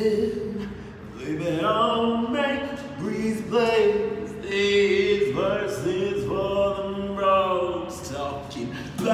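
Man singing a slow melody with long held notes.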